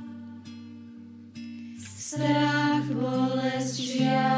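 Music: a slow, gentle song with sustained chords over held bass notes. It is soft at first and grows fuller and brighter from about two seconds in.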